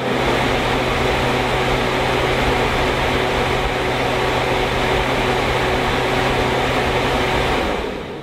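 Prospeed dual SPAL electric radiator fans running, a steady rush of air over a low motor hum. Near the end the hum cuts out and the air noise fades as the fans spin down.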